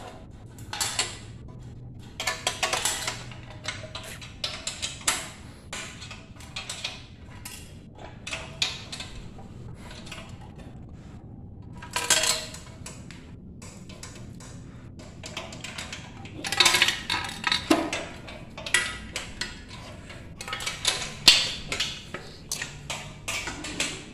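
Irregular clinks, knocks and rattles of metal bandsaw parts and bolts being handled and fitted by hand, some louder clacks among them.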